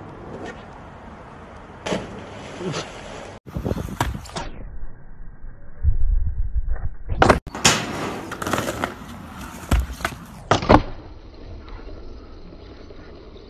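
Skateboard tricks: a series of sharp clacks and thumps as the board pops and lands on hard ground, with wheel noise between them.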